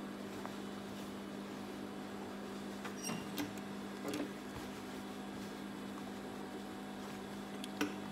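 Industrial sewing machine's motor humming steadily while the machine stands idle, not stitching. A few small clicks and rustles come from denim being handled and set under the presser foot, the sharpest click near the end.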